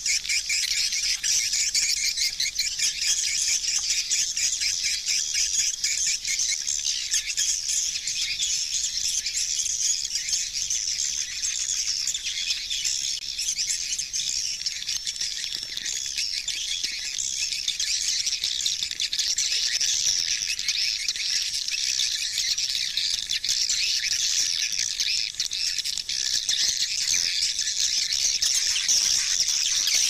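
Swiftlets twittering: a dense, continuous mass of high-pitched chirps, many calls overlapping without a break.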